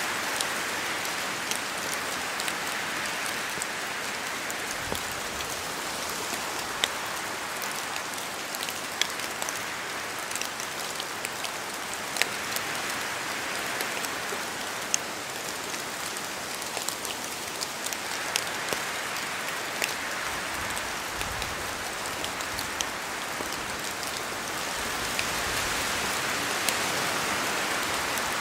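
Steady rain in a forest, with scattered sharp ticks of single heavy drops falling from the trees. A broad rushing of wind through the leaves swells and eases, strongest at the start and over the last ten seconds.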